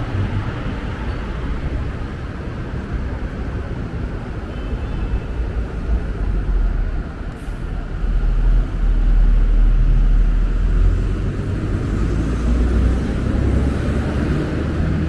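Steady low rumble of a moving vehicle with a broad hiss over it, growing heavier about halfway through.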